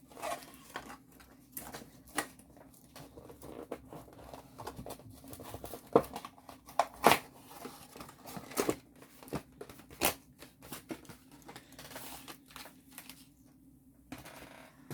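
Packaging of a diamond painting kit being handled and opened by hand: irregular crinkling and crackling with a few sharp snaps, the loudest about six and seven seconds in.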